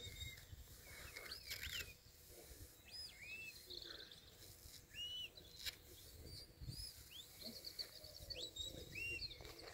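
Faint birdsong: several songbirds calling and singing in short chirps and arching whistled notes, over a faint low rumble.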